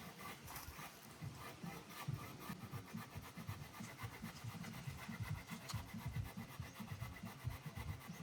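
Faint, continuous back-and-forth strokes of a hand saw cutting through a large piece of wood, several strokes a second.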